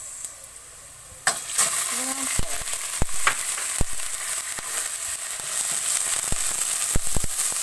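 Ground pork dropped into a hot wok of sautéing onion and garlic, setting off a sudden loud sizzle about a second in that keeps going, with a metal ladle clinking and scraping against the wok several times as it is stirred.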